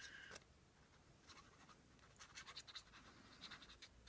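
Faint scratching and rubbing on paper, a few short strokes at a time, about two seconds in and again near the end.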